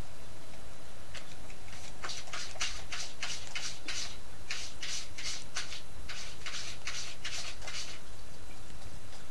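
Kitten sucking on a finger: a run of short sucking sounds, about three a second, starting about a second in and stopping near the end.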